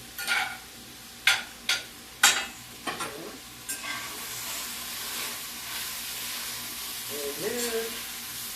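Red and green peppers stir-frying in a hot pan: the stirring utensil knocks and scrapes against the pan about five times in the first three seconds, then a steady sizzle from about four seconds in.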